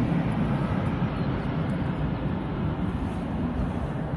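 Jet airliner's engine roar, a steady low rumble slowly fading as the aircraft moves away.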